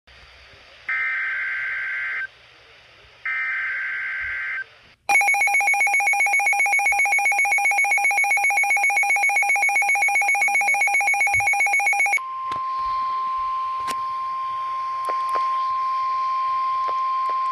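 Emergency alert tones announcing a tornado warning broadcast. Two short buzzy data bursts of the alert header come first. Then a rapidly pulsing multi-tone alert signal sounds for about seven seconds. About twelve seconds in, a single steady high alarm tone starts, the NOAA Weather Radio warning alarm.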